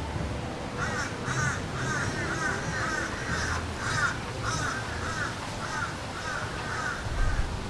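A bird giving a long run of harsh, caw-like calls, about two to three a second, starting about a second in.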